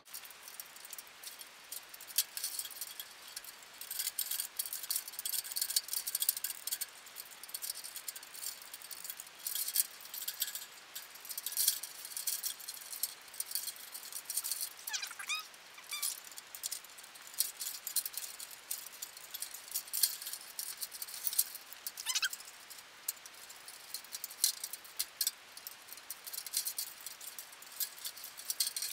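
A string of plastic Christmas mini-light bulbs and their wires clicking and rattling against each other and against the bars of a metal birdcage as the string is threaded through: dense, irregular small clicks and jingles.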